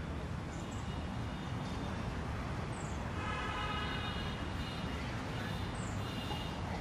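Outdoor background noise: a steady low rumble, with a faint high droning tone held for about a second and a half a little before the middle and briefly again near the end.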